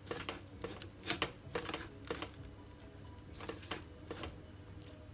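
A hand squeezing and kneading a thick, damp chili masala paste in a plastic bowl: soft, irregular squelches and light taps, a few each second.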